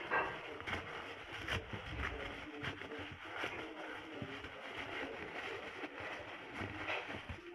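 Thin white tissue paper rustling and crinkling as hands pull its layers apart and scrunch them, with a few sharper crackles.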